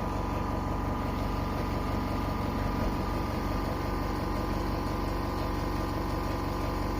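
A steady mechanical hum that holds one even pitch throughout.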